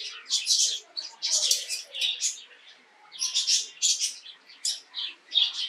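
Small birds chirping in quick runs of short high notes, with a brief lull near the middle.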